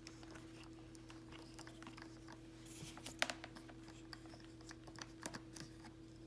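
Scattered light clicks and rustles of objects being handled, with one sharper click about three seconds in, over a steady low electrical hum.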